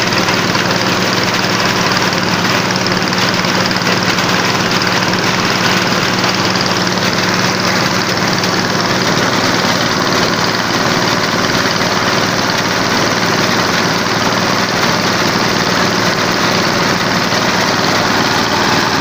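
Engine-driven corn sheller for unhusked maize cobs, running steadily with a loud, continuous engine-and-machine noise.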